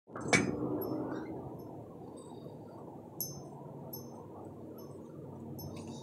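A sharp click near the start, then a steady low outdoor rumble with short, high, tinkling notes scattered through it, a handful of times.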